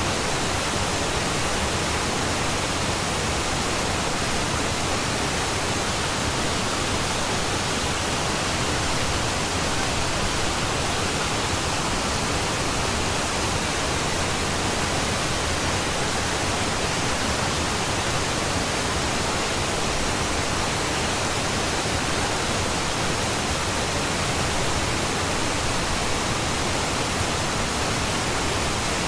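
Steady, even pink-type noise, an unbroken hiss across the whole range with no change in level or texture.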